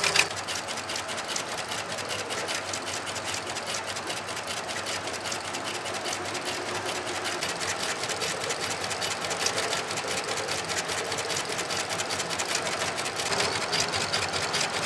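Richpeace computerised carbon-fibre stitching machine sewing carbon-fibre wire down onto felt: the needle head runs with a rapid, even stitching clatter.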